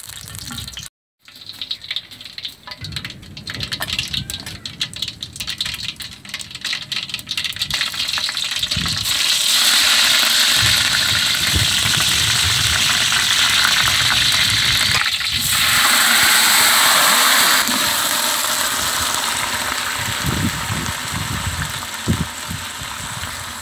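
Curry leaves, dried red chillies and onions sizzling in hot oil in a large aluminium pot: at first spitting and crackling, then a loud, steady sizzle. Near the end a few soft thumps as raw chicken pieces are dropped in.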